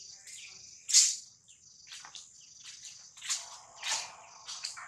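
Steady high-pitched drone of insects, crickets or cicadas, with a few short sudden noises over it, the loudest about a second in and more near the end.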